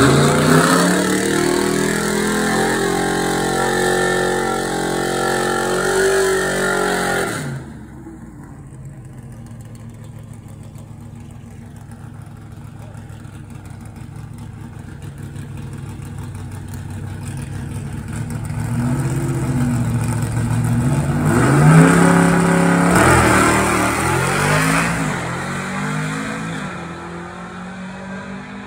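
Drag-racing first-generation Chevrolet Camaro engine, held at high revs in a burnout, cuts off suddenly about seven seconds in to a steadier, quieter running at the line. Later the car launches: the revs climb and break several times as it shifts gears, then fade as it runs away down the strip.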